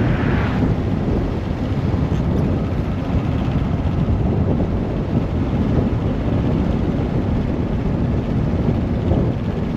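Motorcycle riding under way, its engine running beneath heavy wind noise on the microphone.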